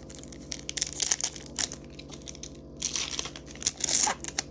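Foil wrapper of a Pokémon TCG Darkness Ablaze booster pack crinkling and tearing as it is opened by hand, in irregular crackly bursts that are busiest from about three to four seconds in.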